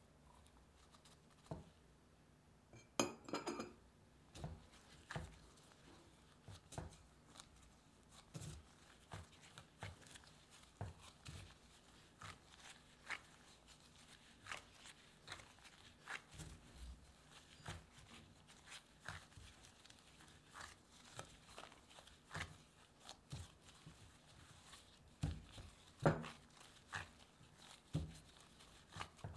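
Bread dough being kneaded by a gloved hand in a glass bowl: soft, irregular squishes and knocks of the dough against the bowl, about one or two a second, with a louder knock about three seconds in.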